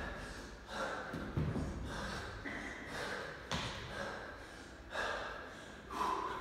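A man breathing hard and gasping between reps, with about one loud breath a second, and a single thud about halfway through.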